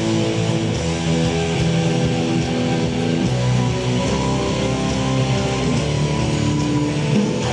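Music with guitar, steady throughout.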